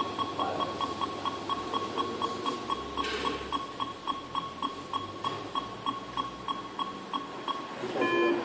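Electronic beeping: short beeps at one high pitch repeating about three times a second, then a different, multi-tone beep near the end.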